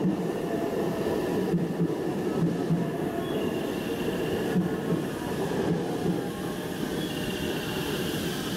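JR 289 series limited-express electric train moving along the platform track: a steady rumble of wheels on rails with faint high wheel squeal.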